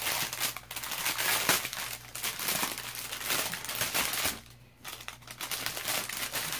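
Clear plastic bag crinkling as it is handled and pulled open around a rolled canvas, with a short pause a little past the middle.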